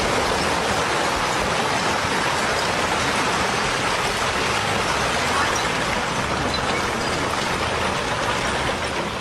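Electric arc welding: a steady crackle and hiss from the welding arc, easing off slightly near the end.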